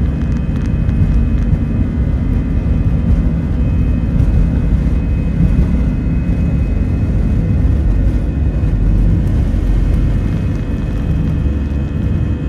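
Airbus A320 jet engines at takeoff thrust, heard from inside the passenger cabin: a loud, steady rumble with a faint steady whine above it.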